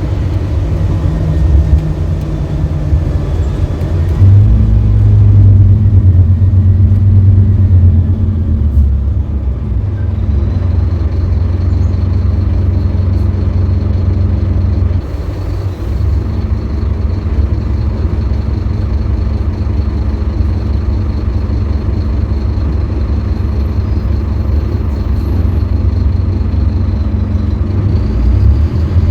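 A 2018 Scania K310UB bus's diesel engine running under way. It gets louder about four seconds in, dips briefly about halfway, then runs steadily with a faint high whine above it.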